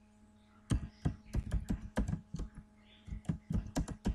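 Typing on a computer keyboard: quick, irregular key clicks that begin under a second in and pause briefly past the middle.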